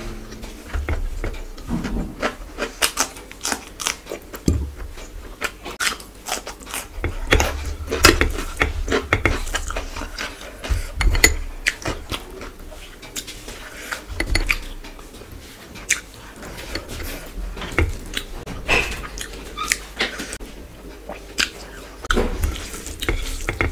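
Close-miked eating by hand: chewing, and fingers mixing rice and curry on a plate, heard as many short, irregular clicks and smacks.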